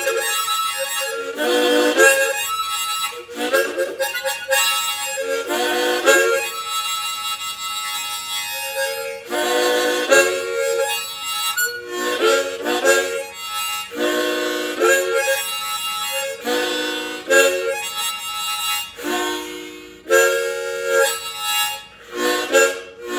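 Harmonica playing the instrumental intro to a folk-blues song in repeated chord phrases of a second or two each.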